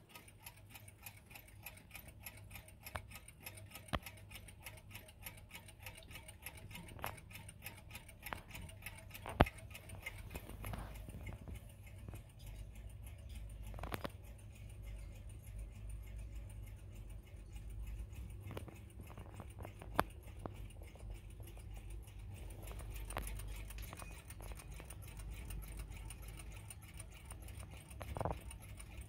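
A group of 1960s–70s mechanical table and alarm clocks ticking together, their ticks overlapping at different rates into a dense, uneven chatter. A few louder single clicks stand out, the loudest about nine seconds in and about twenty seconds in.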